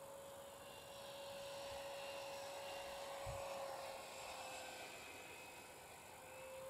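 Electric ducted fan of a Freewing F9F Panther model jet whining in flight at a distance: a steady high whine that swells to its loudest about three seconds in, fades and drops slightly in pitch, then rises again near the end.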